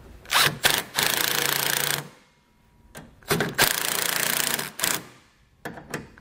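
Milwaukee cordless impact driver running in two bursts of about a second and a half each, driving in mounting screws, with a few light clicks near the end.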